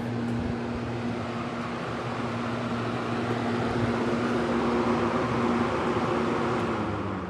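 Montgomery Ward Signature deluxe box fan running on high, heard from about 12 feet away: a steady rush of moving air over a low electric-motor hum.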